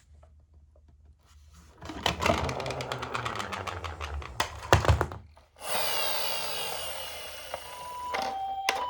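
Toy ambulance minicars rolling down a slope, a dense rattle of small clicks with one sharp knock. Near the end a toy's two-tone hi-lo siren starts, switching back and forth between two pitches.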